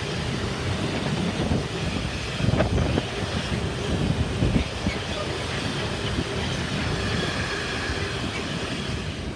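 Freight train rolling past, its wagon wheels rumbling steadily on the rails with irregular knocks.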